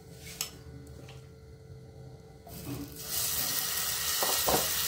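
Batter going into a hot pan of ghee, which starts sizzling steadily about three seconds in, after a few light clicks of a utensil.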